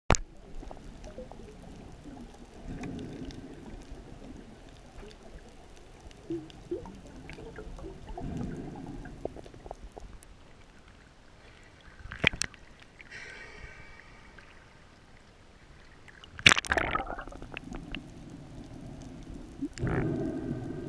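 Muffled underwater water noise around a diver's camera: slow low swishes and gurgles of moving water, with two sharp clicks in the second half.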